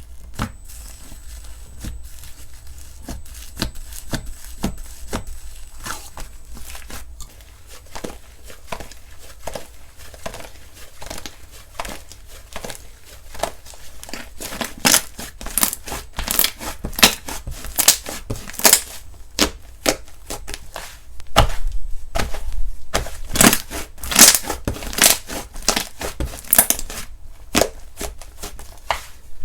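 Slime being squished, poked and stretched by hand, a run of irregular crackles and pops that grows denser and louder about halfway through.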